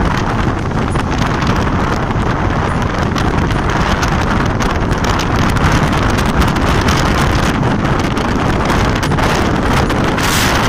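Steady rush of wind on the microphone over the rumble of a passenger train coach running at speed on the rails, heard with the microphone held out of the coach's window.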